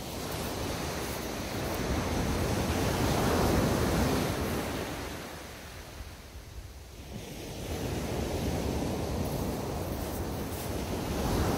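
Small waves breaking on the beach and washing up the shore: one surge swells and fades away about six seconds in, and the next builds from about eight seconds.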